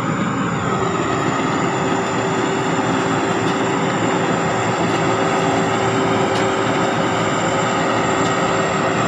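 Sakdipattana SS-300 combine harvester running steadily, its single-turbo Hino J08C diesel engine giving a loud, even drone with a steady high turbo whine over it; a lower steady tone comes in about a second in.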